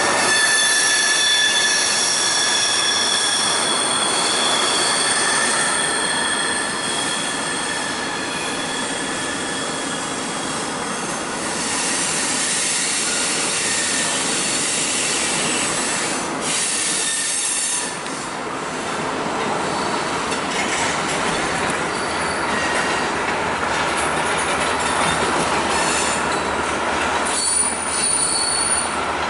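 Housatonic Railroad freight train's wheels squealing on the rails, with high steady squeals for the first several seconds and again briefly near the end. Underneath runs the continuous hiss of a car's tyres on a wet road.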